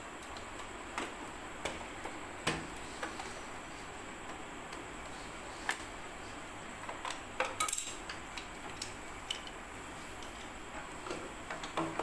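Scattered small clicks and knocks of hard plastic as a 1:14-scale RC concrete mixer truck is handled and worked on with a small screwdriver, with a short burst of clatter about seven and a half seconds in, over a steady hiss.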